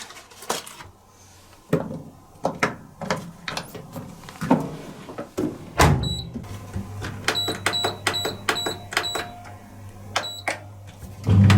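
Pro Action slimline dishwasher being closed up and set: plastic clicks and knocks as the detergent dispenser and door are shut, a firm knock a little past halfway, then a string of short high control-panel beeps as buttons are pressed. A low hum comes on with the knock and swells to a loud hum just before the end.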